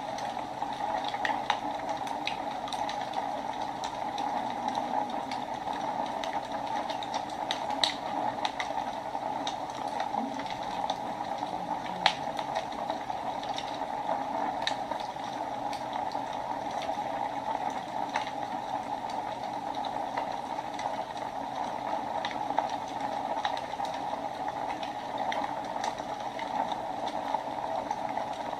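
Wood fire burning in a fireplace: a steady rushing hiss with frequent small crackles and pops, one louder pop about twelve seconds in.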